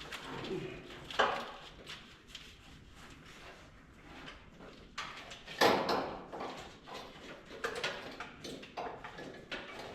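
Rustling, scraping and knocking of a wiring harness being handled and fed down through the engine bay, with two louder knocks, about a second in and just past halfway.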